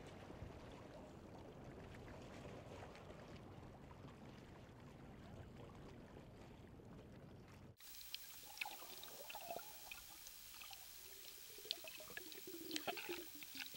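Faint water sloshing and trickling at the side of a boat. About eight seconds in, the sound cuts to a quieter underwater hiss with scattered small clicks and gurgles.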